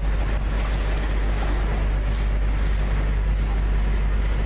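Boat engine running steadily, with water rushing along the hull and wind rumbling on the microphone.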